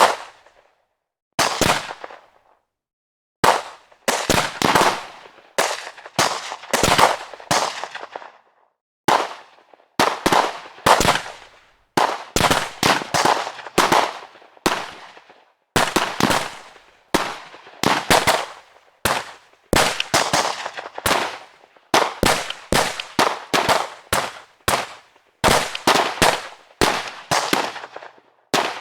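Gunshots fired in an irregular series, some single and some in quick pairs and short strings, each shot ending in a fading echo tail.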